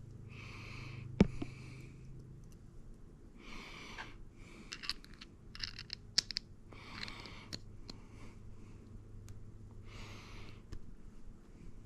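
Small hard clicks and taps of ratchet parts being handled and fitted, with one sharp click about a second in and a quick run of clicks a little past the middle. Breathing is audible in between.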